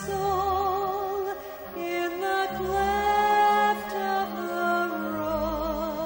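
A woman singing a slow solo song into a microphone, holding long notes with vibrato, over a backing of sustained chords and changing bass notes.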